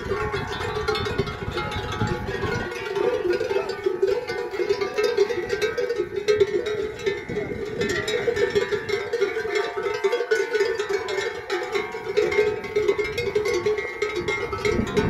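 Many cowbells on grazing Salers cattle ringing and clanking continuously, with many bells at different pitches overlapping.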